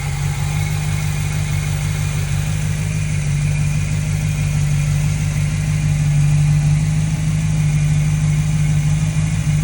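Chevrolet Monte Carlo G-body engine idling steadily, running while its cooling system is burped of trapped air.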